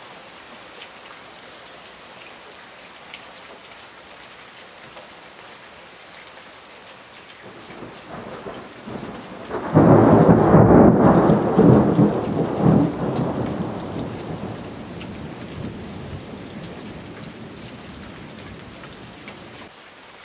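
Steady rain falling, broken about ten seconds in by a thunderclap. A rumble builds for a couple of seconds, then a sudden loud crash, then heavy rumbling that rolls away over several seconds.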